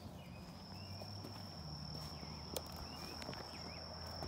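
Faint outdoor ambience: an insect holds a steady high-pitched trill, with a few faint bird chirps behind it. A single light tap comes about two and a half seconds in.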